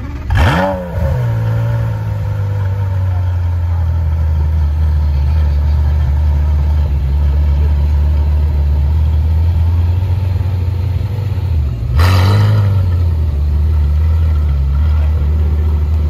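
Gemballa Mirage GT's Carrera GT-based V10 catching on start-up. Its revs flare up and drop back within the first second, then it idles steadily. About twelve seconds in there is one sharp blip of the throttle.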